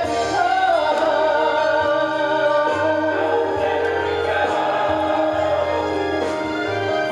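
A woman singing a slow, sustained melody with vibrato, accompanied by a live string ensemble holding low notes underneath.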